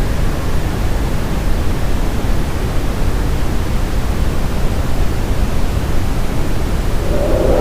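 Steady brown noise: an even, low-weighted rushing hiss with no rhythm or pitch. Just before the end a louder, brighter sound begins to swell in over it.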